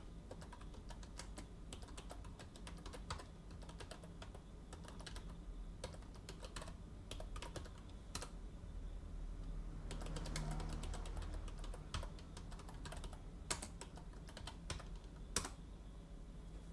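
Computer keyboard being typed on: faint, irregular keystroke clicks as terminal commands are entered.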